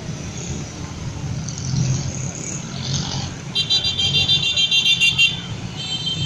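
Traffic of scooters and a bus passing with their engines running, and a high-pitched horn beeping rapidly, about five beeps a second, for nearly two seconds after the middle and briefly again near the end.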